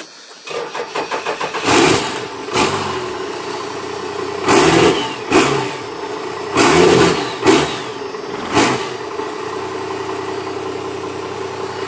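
1996 Dodge Ram's 12-valve Cummins turbo-diesel with a P7100 injection pump cranking for about a second and catching quickly without starting fluid. It is then revved in several short throttle blips and settles to a steady idle.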